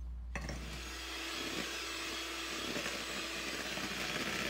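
Electric hand mixer switched on about half a second in and then running steadily, its beaters whirring through a thin pancake-like batter of flour, milk and eggs.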